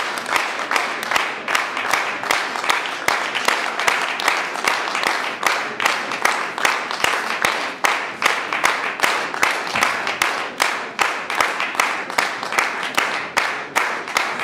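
Audience applauding in unison: a steady rhythmic clapping of about three claps a second over a wash of scattered clapping.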